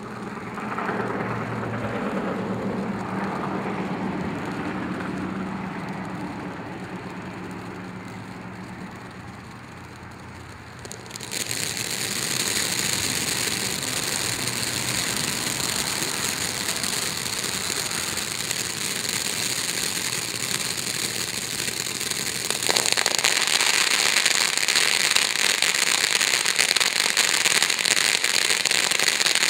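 Pyro Demon "Amazing Fountain" ground-fountain firework spraying. It gives a gushing hiss at first. About eleven seconds in it suddenly switches to a loud, bright crackling hiss, which steps up louder again a little after twenty seconds in.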